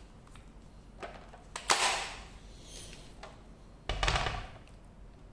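Makita 18 V lithium-ion battery pack slid onto the DPB183 cordless band saw's mount, with a short scrape and a sharp click as it latches home. About two seconds later comes a second, duller knock with a brief rattle.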